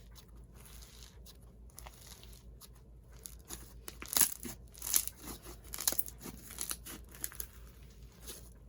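Handfuls of slime with instant snow mixed in being stretched and squeezed, making soft crackling and tearing sounds, busiest in the middle.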